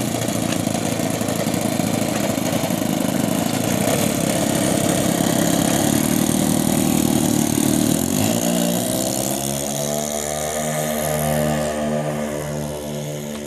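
The twin engines of a radio-control B-25 model run loud at high throttle. About eight seconds in, the pitch drops and they settle into a steadier drone with a regular pulsing, growing fainter near the end.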